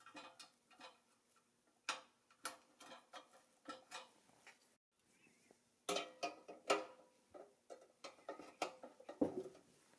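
Irregular small clicks and taps of metal toy parts being handled and fitted together by hand, with a brief silent break just before the middle.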